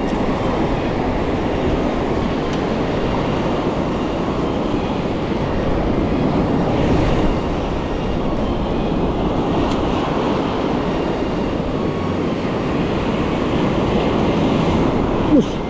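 Steady rumbling roar of surf and wind on a sandy beach, with a brief sharp sound near the end.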